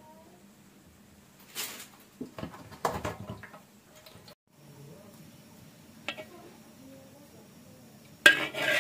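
Metal colander and metal pot clanking and clattering a few times as chopped greens are tipped from one into the other. Near the end a sudden loud sound begins.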